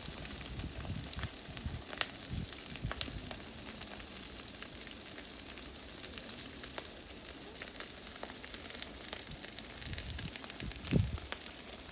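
Wildfire burning: a steady hiss with many sharp crackles and pops scattered through it. A louder low thump comes near the end.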